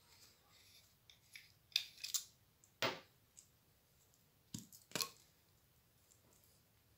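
Brass pipe fittings handled and unscrewed by hand: light scraping of the parts at first, then several sharp metallic clinks and knocks, the loudest about two, three and five seconds in.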